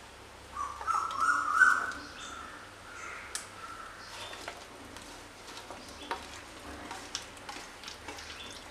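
Cut ash gourd pieces being tipped from a steel bowl into a pressure cooker: soft knocks and a few sharp clicks of the bowl and pieces against the pot, with a brief high chirping sound about a second in.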